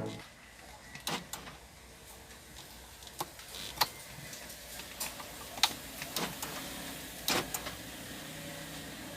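About a dozen sharp clicks and light knocks at irregular intervals over a faint steady background.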